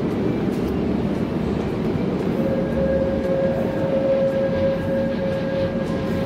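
A train running with a steady low rumble, and a thin steady whine that comes in about two seconds in and fades near the end.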